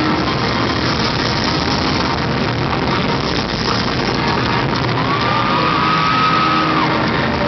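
Electronic music, with a high note that slides up about five seconds in, holds for nearly two seconds, then drops away.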